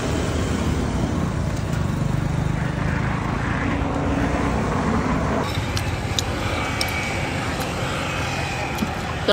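Road traffic, cars and motorbikes passing on a busy street, as a steady low rumble. About five seconds in, the sound changes abruptly and a few light clicks come through over it.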